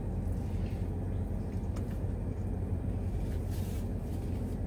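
Steady low hum of a car idling, heard from inside the cabin, with faint chewing sounds from someone eating a burger now and then.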